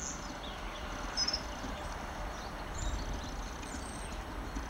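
A few short, high bird chirps, the clearest about a second in, over a steady low rumble in quiet open countryside.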